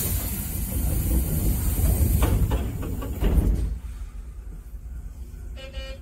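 Inside a Keisei commuter train's driver's cab while stopped at the platform: a sudden loud hiss over a low rumble, with a few knocks, dying away after about three and a half seconds, then a short pitched sound near the end.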